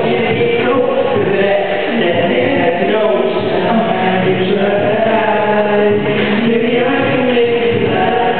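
Group vocal music: several voices singing together in harmony, steady and continuous.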